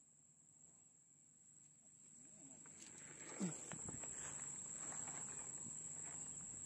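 Rice plants rustling and swishing as someone pushes through a paddy on foot, building up about two and a half seconds in, with a short falling sound just after halfway. A steady high insect drone runs underneath.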